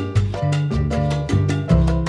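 Upbeat Latin-style background music, with a stepping bass line and quick percussion strikes.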